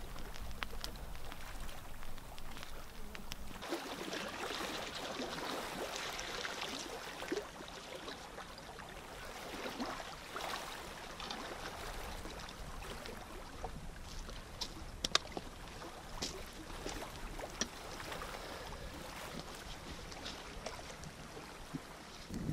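Small lake waves lapping and trickling against a rocky shore, with scattered sharp clicks and crackles from a driftwood campfire.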